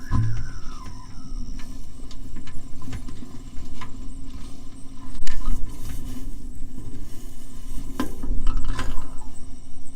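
A kite reel resonator hums with a steady low tone as the kite line pulls on it. Gusts of low rumble and a few sharp clicks and knocks come through, loudest around the middle and near the end.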